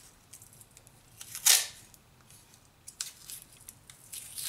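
Masking tape pulled off the roll in one short rip about one and a half seconds in. Light crackles and ticks around it come from the tape being handled and pressed down onto the engine block.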